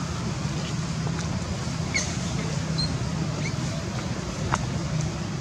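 Steady low engine-like rumble, with a few brief high chirps and light clicks about two to three seconds in.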